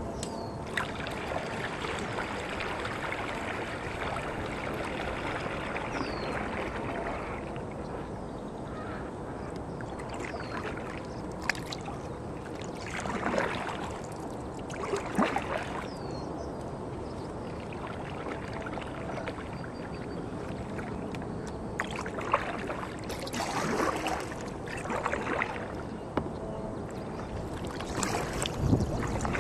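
Kayak paddle strokes in water: splashes and drips every few seconds over a steady hiss of water and air. A few faint, short, falling bird calls come through now and then.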